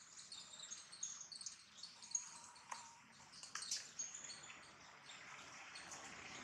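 Faint chirping of small birds in the background: many short, high notes overlapping, with a couple of sharp clicks near the middle.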